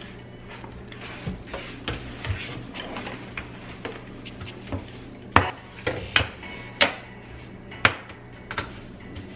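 Knocks and light clatter of objects and hands bumping around inside a kitchen sink base cabinet while its floor is cleaned, with a cluster of sharper knocks a little past halfway.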